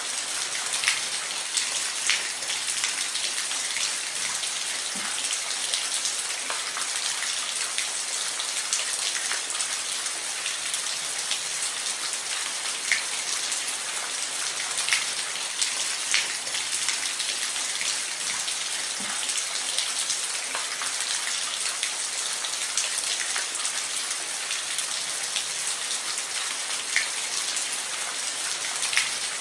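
Steady rain falling on a roof: an even hiss with individual drops ticking and tapping at irregular intervals.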